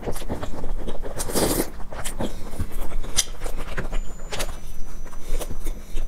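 Close-miked eating sounds: a slurping sip from a bowl about a second in, then bites into a crusty baked bun and chewing, with many small crackly clicks.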